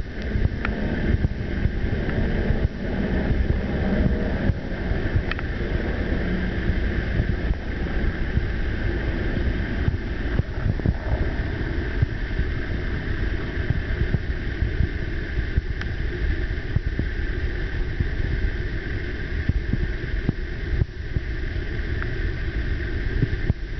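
Steady drone of several propeller aircraft flying over in formation, mixed with wind rumbling on the microphone.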